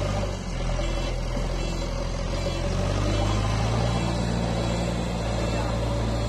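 JCB loader's diesel engine running steadily as the machine works through snow, a low engine drone with a steady whine above it.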